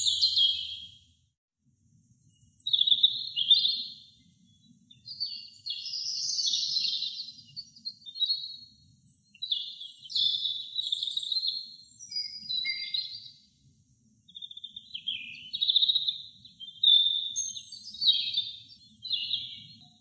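European robin singing: a string of high, thin warbling phrases, each a second or two long, separated by short pauses.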